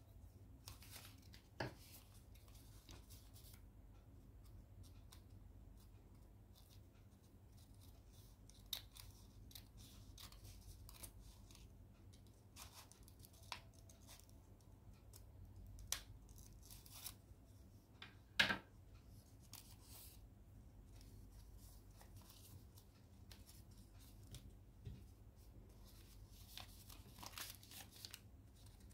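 Sheet of origami paper rustling and crinkling as it is folded and creased by hand, with scissors snipping into the paper. Scattered short crackles and snips, the sharpest about eighteen seconds in.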